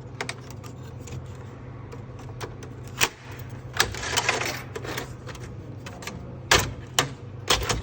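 Irregular clicks and knocks of a vending machine's coin mechanism and loose coins being handled while a coin jam is cleared, with a brief rustle about four seconds in, over a steady low hum.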